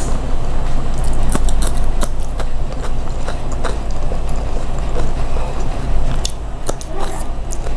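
Close-up chewing and biting of food, with irregular sharp mouth clicks, over a steady low hum.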